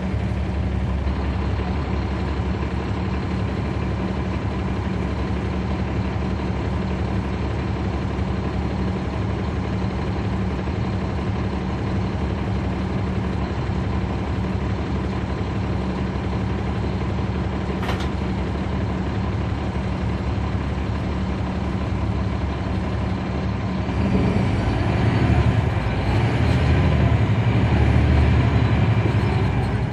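Caterpillar C13 diesel engine of a 2009 NABI 40-SFW transit bus, heard from the rear seats inside the bus, running with a steady low drone, then getting louder about six seconds before the end. A single brief sharp click a little past halfway.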